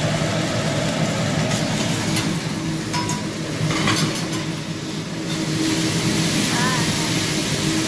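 Noodles sizzling on a hot teppanyaki griddle over a steady low hum of restaurant noise, with a few light clicks about halfway through.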